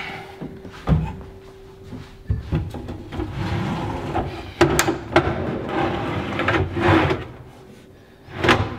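A large wooden drawer being fitted onto metal telescopic drawer slides: separate knocks, then a few seconds of sliding and rattling with sharp clicks, and a loud clunk near the end.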